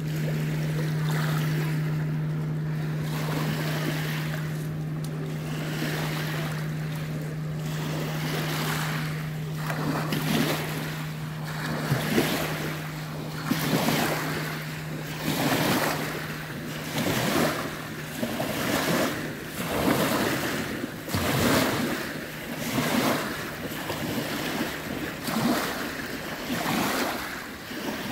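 Small lake waves washing onto a pebble beach, surging and drawing back every second or two, more distinct from about a third of the way in. Under them a steady low drone fades out about two-thirds of the way through.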